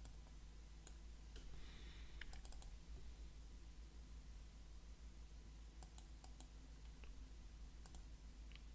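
Computer mouse clicking: scattered single clicks and a few quick runs of clicks, over a faint steady low hum.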